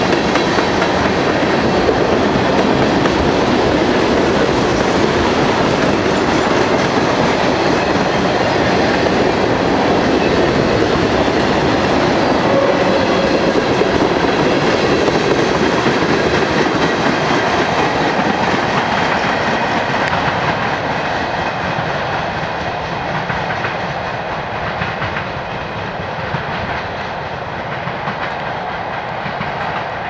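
A long freight train of tank cars rolls past with a steady clatter of wheels on the rails. The sound eases off over the last third as the cars draw away.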